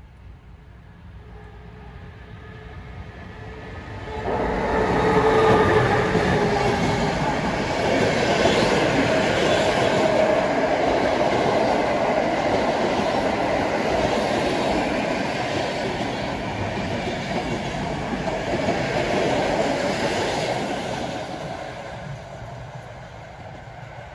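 PKP Intercity passenger train passing close by at speed: wheel and track noise builds, comes on suddenly about four seconds in as the train reaches the spot, stays loud while the coaches go by, then fades near the end as the train moves away.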